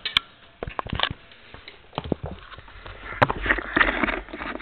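Scattered clicks, knocks and rustling from handling plastic table-fan blades and parts, with a sharp click about three seconds in and a short stretch of scraping rustle just after.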